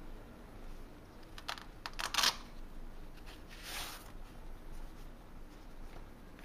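Handling noise from a black leather iPad 2 case: a few light clicks and taps about a second and a half in, a louder cluster about two seconds in, then a short rustling swish near four seconds as a white protective sheet is slid off the case.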